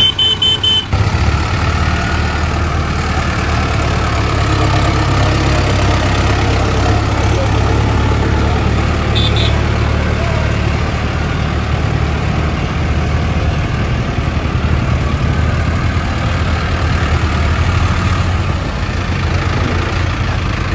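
Mahindra Arjun Novo 605 4WD tractor's diesel engine running steadily at low revs as the tractor drives in. A short high-pitched tone sounds in the first second, and a brief high sound about nine seconds in.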